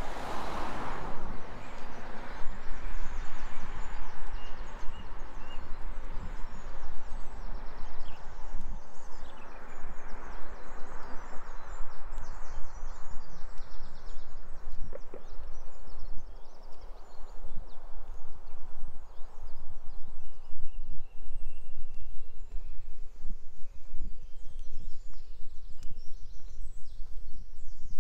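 Outdoor ambience of a walk: small birds chirping and singing, over the walker's regular footsteps. A rushing noise is loudest at the start and fades away over about the first twenty seconds.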